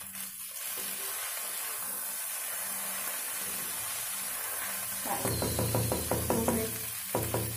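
Sabudana khichdi sizzling steadily in a kadhai, then, from about five seconds in, a wooden spatula stirring it and knocking rapidly against the pan, several quick knocks a second.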